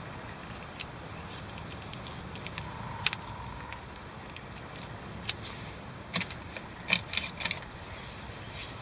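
Light clicks and crackles of hands handling the CV boot repair wrap and its packing, coming in a quick cluster about six to seven and a half seconds in, over a steady low hum.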